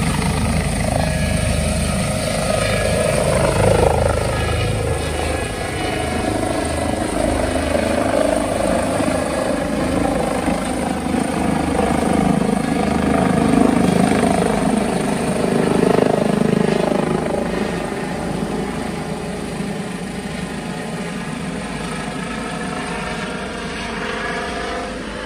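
Airbus H145 helicopter lifting off and climbing away: a steady loud rotor beat under turbine whine, swelling as it passes overhead, then growing fainter over the last several seconds as it flies off.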